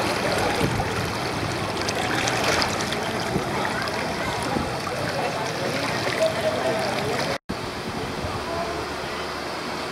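Floodwater washing and sloshing through a street as people wade in it, a steady rushing noise with faint distant voices. The sound drops out for an instant about three-quarters of the way through, then goes on steadier.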